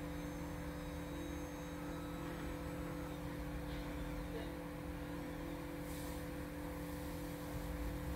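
Steady mechanical hum at a few fixed pitches over a low rumble.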